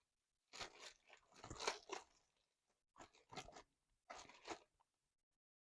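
Homemade slime being squished and pulled by hand, in four short, quiet bursts.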